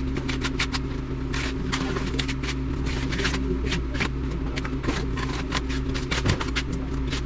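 An engine or motor running steadily, with rapid, irregular clattering on top.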